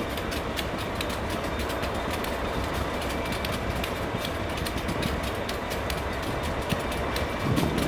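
Freight train of loaded steel-coil cars rolling on the rails: a steady low rumble with many sharp wheel clicks over the track, a little louder near the end.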